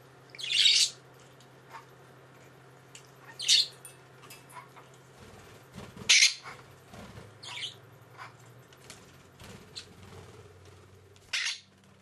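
Budgerigar giving about five short, high-pitched chirps and squawks a few seconds apart, the loudest about six seconds in.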